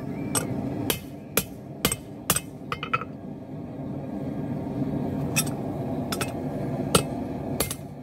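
Hand hammer striking hot steel on an anvil. Sharp metallic strikes come about two a second for the first three seconds, pause, then a few more spaced strikes follow near the end, over a steady low rumble.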